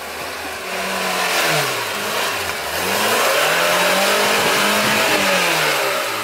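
Lada Niva's engine revving hard, its pitch rising and falling several times, as the Niva claws its way out of a deep mud rut under load. The revving grows louder after the first second.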